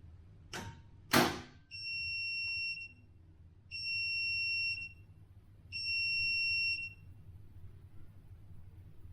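Two sharp clicks, then a Bosch washing machine sounds three long, evenly spaced beeps on one high tone, the signal that the wash cycle has finished, over a low steady hum.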